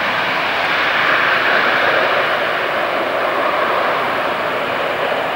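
Business jet's engines running, a steady rushing jet noise that swells over the first couple of seconds and then slowly fades as the jet moves away down the runway.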